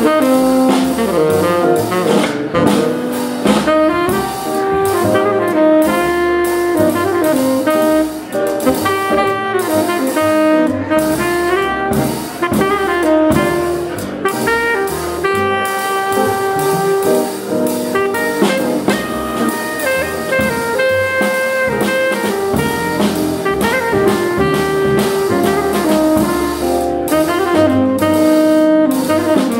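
Live jazz quartet: a tenor saxophone plays the lead melody over archtop guitar, upright bass and drum kit.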